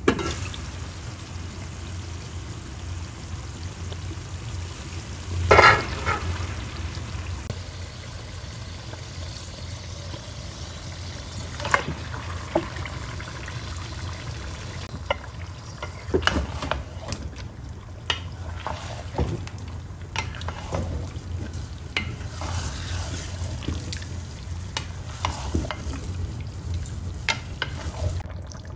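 Chicken pieces frying in oily tomato-onion masala in an aluminium pot, sizzling steadily, with a spatula stirring and scraping against the pot's sides. A louder clatter about five seconds in.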